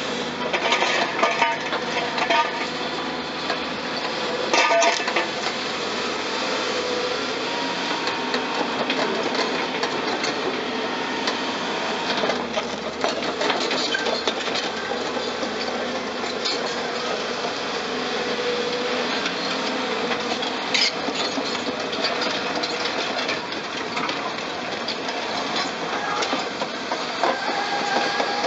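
Caterpillar crawler excavators working on a demolition: diesel engines running steadily under a dense clatter of metal and breaking concrete, with a few sharp, louder knocks.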